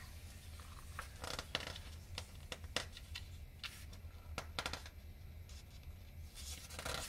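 Pages of a picture book being handled and turned: scattered short paper rustles and flicks, over a low steady hum.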